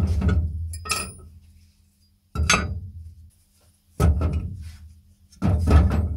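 Cast-iron meat grinder parts being set down one by one on a wooden board over a perforated steel grate: about five metallic clunks and clinks, each ringing briefly, over a low steady hum.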